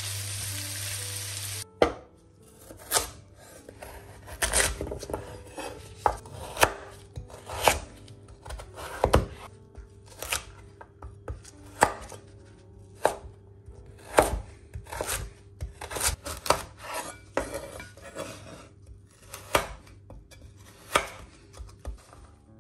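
Kitchen knife slicing carrots on a wooden cutting board: sharp, irregular knocks of the blade striking the board, about one a second. It opens with a steady sizzle of peppers and onions frying in a pan, which cuts off suddenly about a second and a half in.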